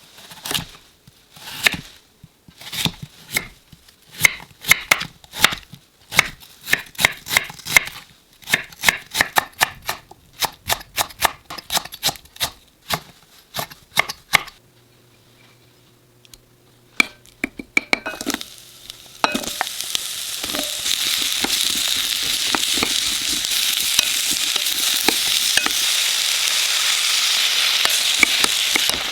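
A kitchen knife chops radish on a cutting board in quick strokes, about two or three a second. After a short pause and a few clicks, the cut pieces sizzle steadily in a hot pot from about two-thirds of the way in.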